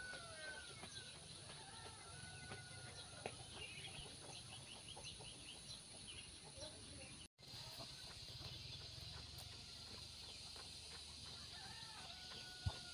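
Quiet village ambience: scattered faint chicken clucks and bird calls over a steady high insect hum, with a few footsteps near the end.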